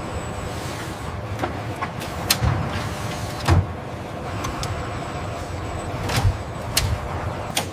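Car-factory assembly-line ambience: a steady mechanical hum with a faint high whine, broken by about five sharp clicks and knocks at uneven intervals.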